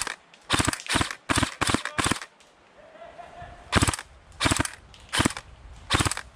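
Airsoft gun firing close by: about ten sharp shots, six in quick succession over the first two seconds, then four more at a slower, even pace.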